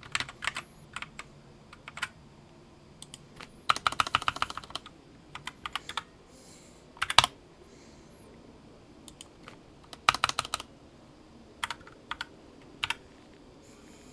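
Typing on a computer keyboard in short bursts of key clicks with pauses between, including a quick run of keystrokes about four seconds in and another around ten seconds.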